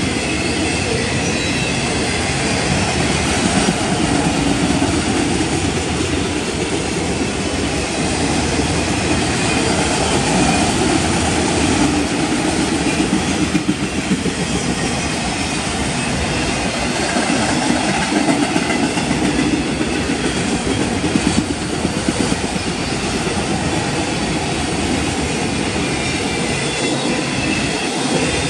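Freight train of autorack cars rolling past at close range: steel wheels running on the rails with a steady, loud rolling noise and clatter that goes on without a break.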